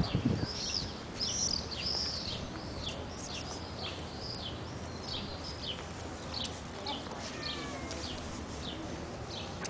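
Small birds chirping in a quick run of short, high, arching calls for the first seven seconds or so, then sparser thin chirps with a few faint falling whistles. A dull thump comes right at the start.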